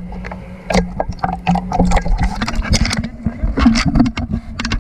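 Water splashing and sloshing around an action camera held at the water's surface, dipping in and out: a dense, irregular run of clicks and splashes over a low steady hum.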